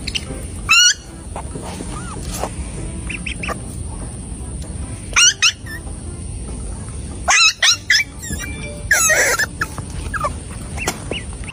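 Budgerigar squawking: a handful of short, sharp calls that glide up and down in pitch, the loudest about a second in, near the middle and toward the end, over a steady background noise.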